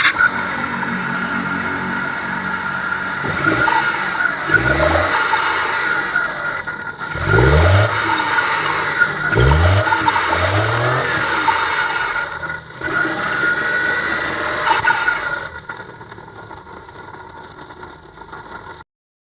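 Suzuki Mehran's small three-cylinder petrol engine running, revved up about four times in quick blips with a steady high whine underneath. It goes quieter in the last few seconds.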